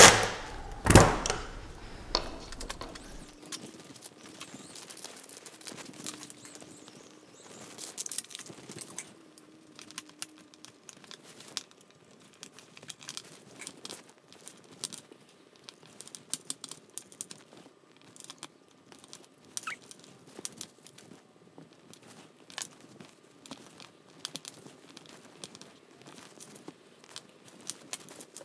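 Hands handling wires, plugs and electronic speed controllers on a wooden workbench: scattered light clicks, rattles and rustles. A brief louder clatter comes about a second in.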